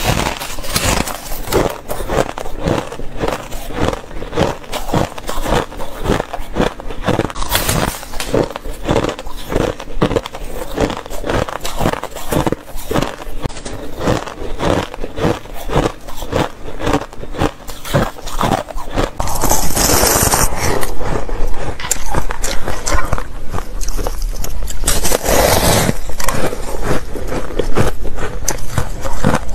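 Close-miked chewing of a mouthful of shaved ice: a fast run of crisp crunches. About two-thirds of the way through it changes abruptly to louder, harsher crunching and scraping from biting into a frosted purple ice block.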